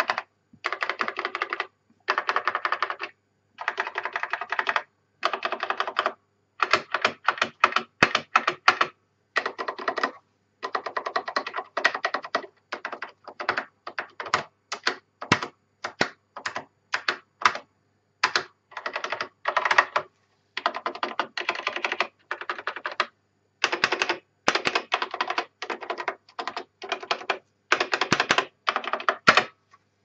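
Typing on a Honeywell Micro Switch 86SD23 keyboard with Hall effect key switches: quick runs of key clicks in bursts of a second or two, broken by short pauses.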